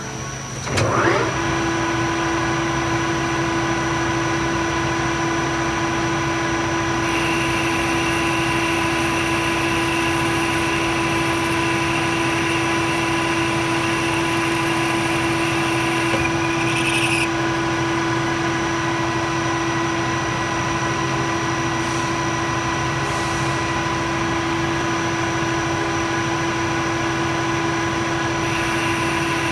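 A metal lathe's motor starts up about a second in with a rising whine, then runs steadily at speed. A carbide-insert boring bar cuts inside the bore of the spinning workpiece, adding a higher hiss from about seven to seventeen seconds in and again near the end.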